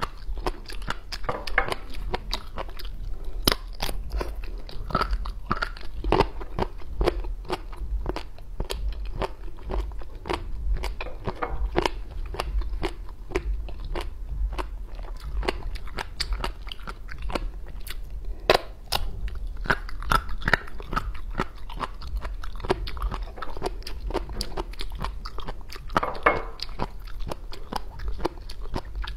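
Jellyfish being bitten and chewed close to the microphone: a steady run of crisp little crunches and crackles.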